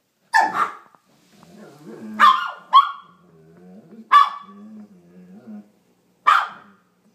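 A teacup Maltese and a Bernese mountain dog 'talking' to each other: six sharp, high-pitched barks, a quick pair first and then single barks every second or two, with a low, wavering grumble between them through the middle.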